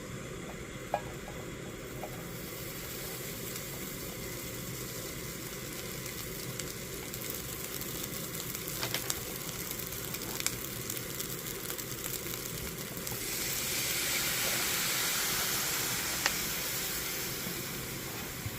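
Rice and pad thai noodles sizzling in a pan over high heat, a little water added to steam them through. The sizzle grows louder for a few seconds past the middle, and there are a few sharp clicks.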